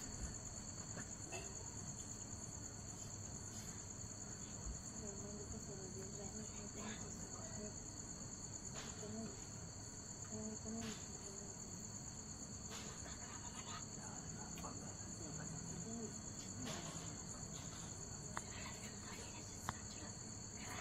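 Crickets chirring in a steady, unbroken high-pitched trill, with a few faint clicks here and there.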